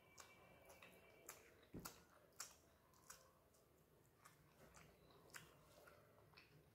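Faint close-miked chewing of a mouthful of rice: soft wet mouth clicks at irregular intervals, a few louder ones around two seconds in, with the light squish of fingers mixing rice on a banana leaf.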